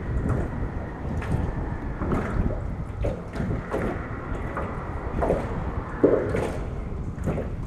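Wind buffeting the microphone over water lapping against an aluminum jon boat's hull, with a few small knocks, the sharpest about six seconds in.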